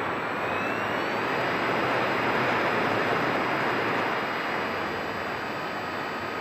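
Model airplane in flight heard from its onboard camera: a steady rush of airflow noise with the motor's thin whine on top, the whine rising in pitch during the first second and then holding steady.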